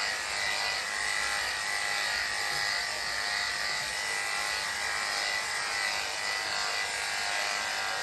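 Corded electric dog grooming clippers running with a steady high buzz as they are run down the long coat of a small dog's belly.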